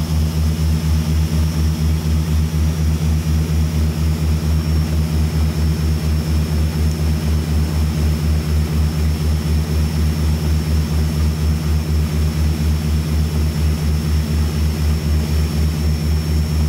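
De Havilland Canada Dash 8-200's twin turboprop engines and propellers droning steadily, heard from inside the cockpit on final approach. The low hum beats in a regular pulse, over a faint steady high whine.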